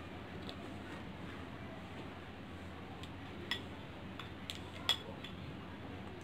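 A few light clicks of makeup brush handles knocking against a glass bowl as the brushes are moved in their soak, over a low steady background hum; the clearest clicks come about three and a half and five seconds in.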